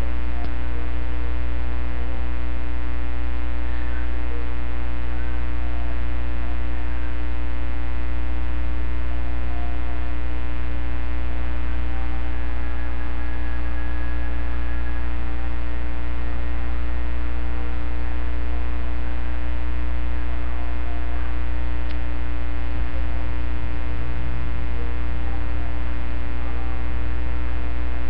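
Loud, steady electrical mains hum with a dense stack of buzzing overtones, heaviest in the low bass.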